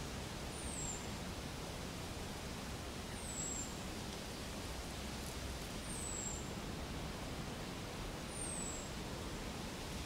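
Steady outdoor background hiss, with a high, thin, downward-sliding whistle repeated four times, about every two and a half seconds.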